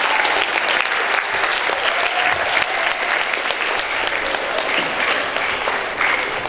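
An audience clapping, a sustained round of applause that slowly dies down near the end.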